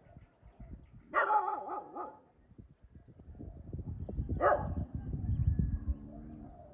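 A dog barking and yelping: a drawn-out, wavering yelp-bark about a second in and a short sharp bark at about four and a half seconds, over low thumping and rumbling noise.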